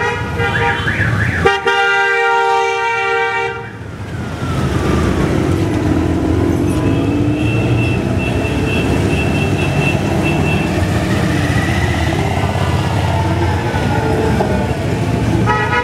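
A motorcycle horn sounds one long blast of about two seconds, starting and stopping sharply, just after a brief wavering tone. Then the low, steady engine note of several Honda Gold Wing motorcycles riding past at parade pace.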